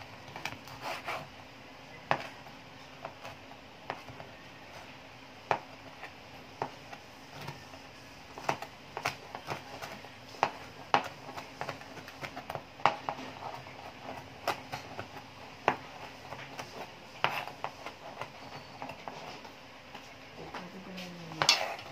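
Kitchen knife chopping fried chicken on a plastic cutting board: irregular knocks of the blade on the board, roughly one a second, with a quicker flurry of louder chops near the end.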